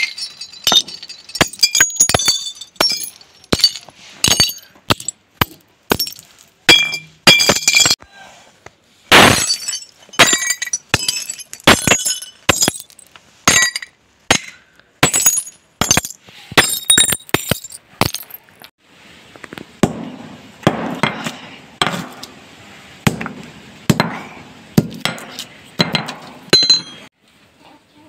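Hammer blows smashing glass beer bottles on concrete, each strike sharp with the clink and scatter of shards. In the last third the blows land on the heap of broken glass, crunching it with a grittier sound and less ringing.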